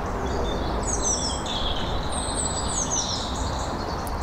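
Small woodland birds singing: several runs of quick, high, falling chirps over a steady low background rumble.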